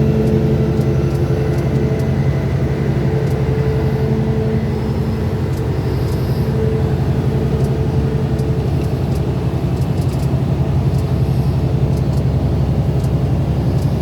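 An engine running steadily, a continuous low drone that holds the same level throughout.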